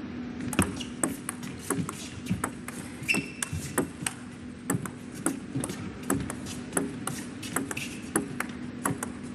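A long table tennis rally: the ball knocks sharply off the rackets and the table a couple of times a second, over a faint steady hum.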